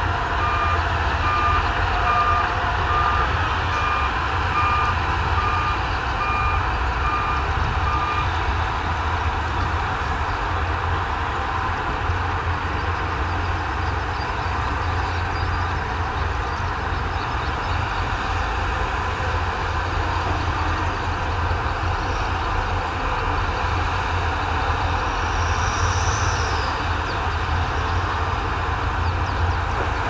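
Heavy earthmoving machines running steadily with a low engine rumble, while a reversing alarm beeps about one and a half times a second for the first eight seconds and then stops.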